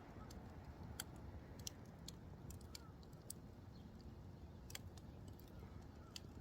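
Wood campfire burned down low, burning quietly with sparse sharp crackling pops of the wood, about five in a few seconds, over a faint low rumble.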